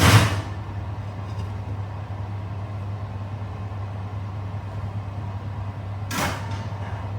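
Steady low hum with a faint whirring noise from a running kitchen appliance. There is a short loud clatter at the start and another brief noise about six seconds in.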